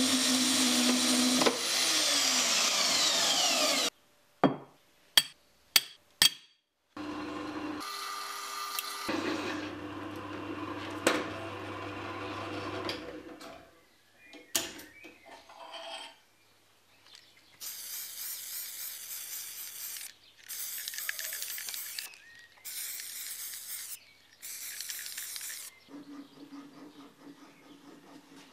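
Blue metal-cutting chop saw cutting through steel flat bar for about four seconds, its motor whine falling as it spins down, followed by a few sharp clicks. A drill press then bores steel plate with a step drill bit for about six seconds, and near the end come four short bursts of hissing noise.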